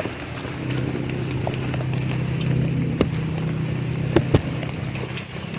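Steady rain falling, with a low steady drone underneath and a few sharp clicks, one about three seconds in and two more just past four seconds.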